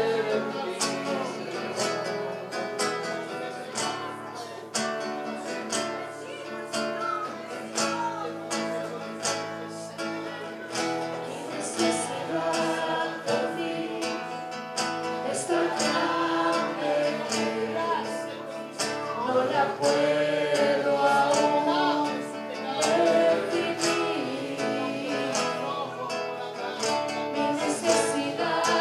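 Worship music: voices singing with guitar accompaniment and a fairly steady beat.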